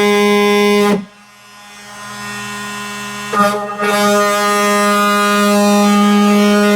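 Electric power tool cutting the plastic bed liner of a pickup truck, with a loud, steady buzz. It stops about a second in and winds down, then starts up again about three and a half seconds in and keeps cutting.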